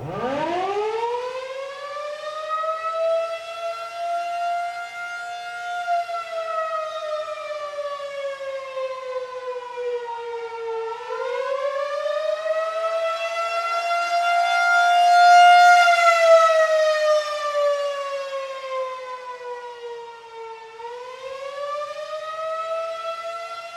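Federal Signal 2001-SRN electronic tornado siren sounding its attack signal: one pitched tone that sweeps up from low at the start, then slowly rises and falls in pitch, about ten seconds per cycle.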